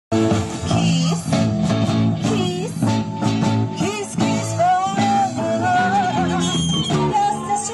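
Live rock band playing an upbeat number: electric guitars and drums with a woman singing lead.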